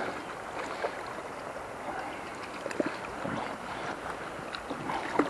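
River current running, a steady even rush of water, with a few faint small clicks.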